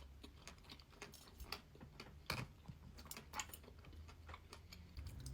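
Close-miked eating sounds: soft, irregular wet clicks and smacks from chewing sour fruit leather with pomegranate seeds, over a faint low hum.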